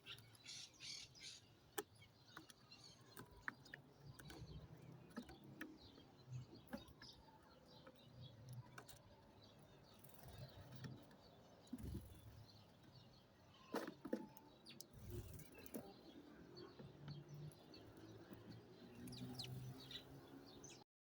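Small birds chirping and calling faintly, with a few sharp clicks, the loudest two close together a little past the middle. The sound cuts off suddenly just before the end.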